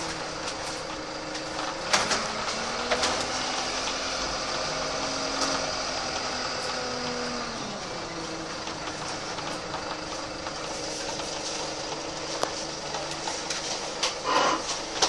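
A VDL SB120 Wright Cadet single-deck bus's diesel engine running, heard from on board, its revs falling away about eight seconds in, with scattered rattles and knocks from the body and a few louder clunks near the end.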